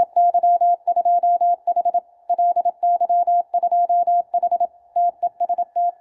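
Morse code sidetone from a QRP Labs QCX-mini CW transceiver: a steady mid-pitched beep keyed on and off in dots and dashes. The rig is transmitting a CW contest call, 'CQ TEST DE LY2H', keyed from a logging program's macro.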